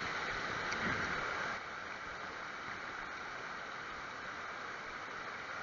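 Shallow stream running over rocks: a steady rush of water, a little louder for the first second and a half.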